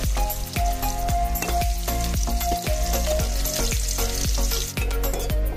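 Garlic cloves and a dried red chilli sizzling as they fry in hot oil with mustard seeds in an aluminium kadai, turned with a steel spoon. The sizzle starts just after the garlic goes in and dies down near the end.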